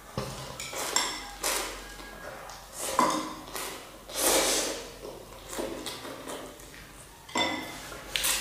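A child eating instant noodles with chopsticks and a metal spoon from a ceramic bowl: slurps every second or so, and a few short clinks of the spoon against the bowl.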